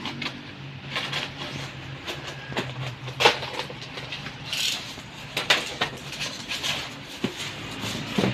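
Packaging being handled: scattered clicks, knocks and rustles, with a sharp knock about three seconds in and a brief rustle a little after.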